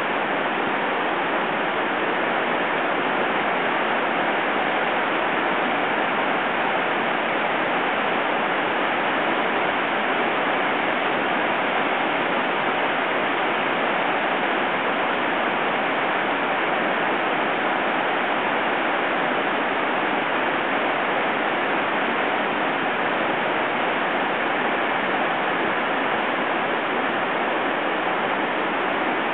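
The Devil's Throat of Iguazú Falls, a huge horseshoe waterfall, pouring: a loud, steady, even rush of falling water that does not change.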